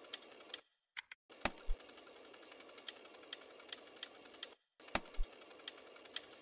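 Online slot game sound effects: a fast ticking rattle of spinning reels, broken twice by a brief silence between spins. A heavy thud comes about one and a half seconds in and again near five seconds in.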